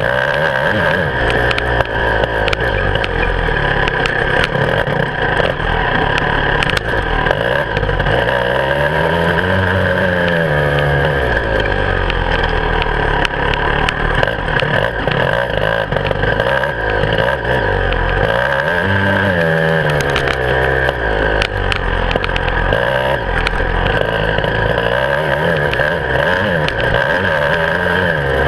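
Beta 300RR two-stroke enduro motorcycle engine running hard, its revs rising and falling as it is ridden along a rough dirt trail, with frequent knocks and clatter from the bike over the ground. Heard close up from a handlebar-mounted camera.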